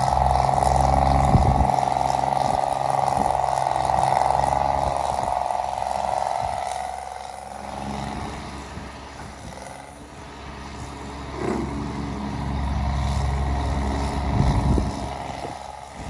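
An excavator working, its engine running under load with a strong high whine that fades out about halfway through, and a few knocks as it digs sand-laden manure solids and swings its bucket over to a tractor-drawn manure spreader.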